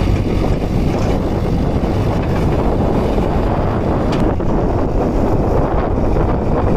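JCB 3DX backhoe loader's four-cylinder diesel engine running steadily under hydraulic load as the backhoe arm digs and swings, with wind buffeting the microphone.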